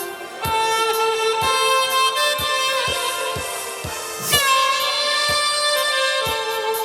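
A wind-instrument melody of long held notes played over a backing track with a steady drum beat, about two beats a second.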